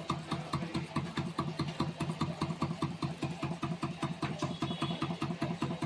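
Farata high-speed stand fan turning slowly on a series test board with a steady khat-khat knocking, about eight knocks a second, like a generator running. The knocking comes from play in the worn front motor shaft that the blade is fixed on.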